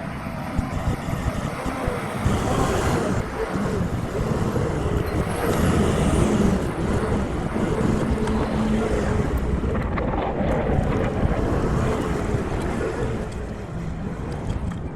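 Farm tractor engine running steadily while working in the field, a continuous rumble mixed with rushing noise.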